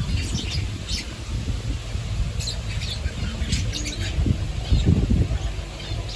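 Budgerigars chattering, with short high chirps and squawks coming at irregular moments, over a low rumble.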